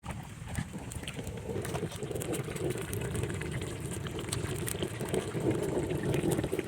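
Chicken cooking in a kadhai, sizzling and bubbling with scattered pops, growing gradually louder.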